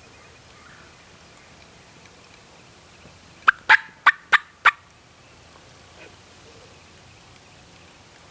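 A wild turkey gobbler gobbling once, loud: a quick rattling run of about five notes lasting just over a second, about three and a half seconds in.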